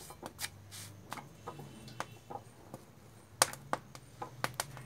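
Wooden rolling pin working roti dough on a wooden board: scattered light clicks and knocks of wood on wood, the sharpest about three and a half seconds in and a few more quick ones near the end.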